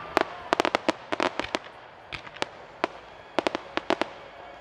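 Aerial fireworks bursting: a rapid, irregular string of sharp pops and bangs in clusters, thinning out near the end.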